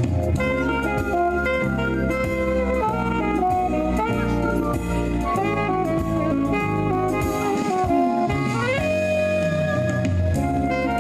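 Live jazz played by a saxophone ensemble of altos and tenors, with an alto saxophone among them. Several lines move together over a stepping low line, and about eight seconds in one line slides upward.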